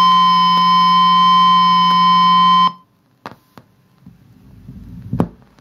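Record playback from a linear-tracking turntable: a steady high tone over a low hum, with a faint tick about every 1.3 seconds, once per turn of the 45 rpm single. It cuts off abruptly a little under halfway through as playback stops, followed by two light clicks, a low rumble and a sharp thump near the end.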